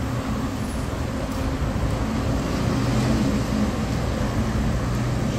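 A city bus driving past on the street, its engine hum over steady traffic noise, swelling to its loudest about halfway through.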